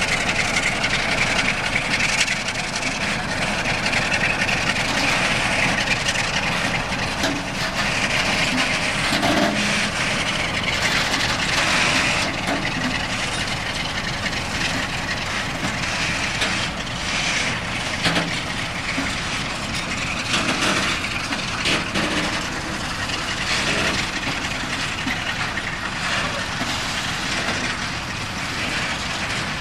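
Loaded freight train of tank wagons rolling past, its wheels knocking irregularly over rail joints, with the LDE 060-DA diesel locomotive pulling away ahead.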